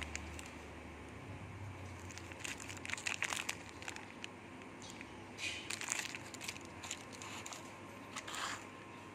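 Clear plastic film wrapped around a ball bearing crinkling and crackling as it is handled in the hand, a run of short, irregular crackles with a few louder bunches.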